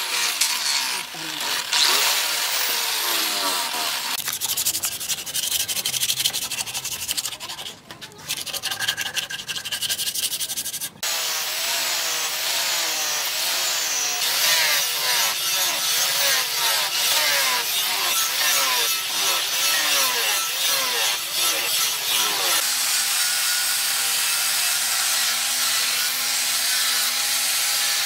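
Angle grinder with a sanding disc running against a knife, first on the wooden handle and then on the steel blade. Its whine rises and falls as the disc is pressed to the work. The sound changes abruptly about 4, 11 and 23 seconds in.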